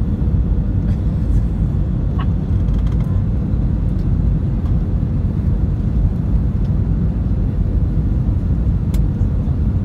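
Steady cabin noise inside an Airbus A320 descending to land: a low rumble of engines and rushing air, with a faint steady hum over it.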